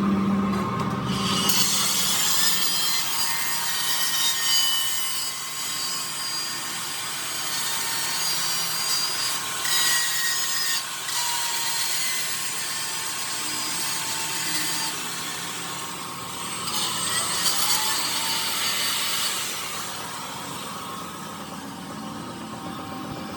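A power tool grinding metal on a truck drive shaft: a steady rasping hiss over a thin motor whine. It eases off briefly twice and dies away near the end.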